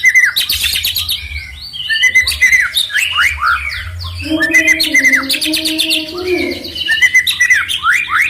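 Kapas tembak bird singing its loud 'tembakan' (shooting) song: rapid runs of sharp downward-sweeping whistles and chattering notes, one after another.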